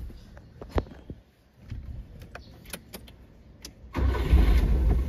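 Nissan GA13 carbureted four-cylinder engine turning over and catching about four seconds in, after a few light clicks, now that the popped-off ignition coil wire has been put back and it has spark again.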